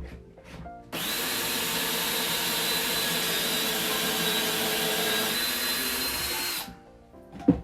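Power drill spinning a Kreg pocket-hole bit into 3/4-inch plywood clamped in a Kreg Jig: steady drilling with a constant whine, starting about a second in and cutting off suddenly after about five and a half seconds. A sharp knock follows near the end.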